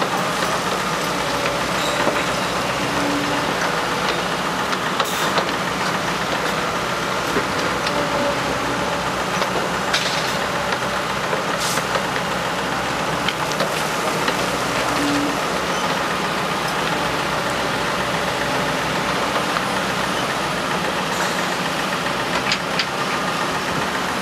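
Wacker Neuson 9503 wheeled excavator's diesel engine running steadily as the machine works its arm, with a few short sharp knocks.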